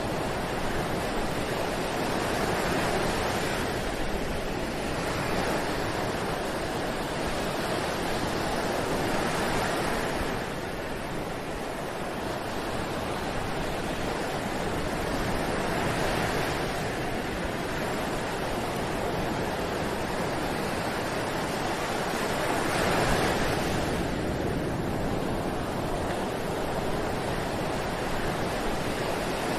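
Ocean surf breaking on a beach: a steady wash of waves that swells every six or seven seconds as each wave comes in, the strongest about three-quarters of the way through.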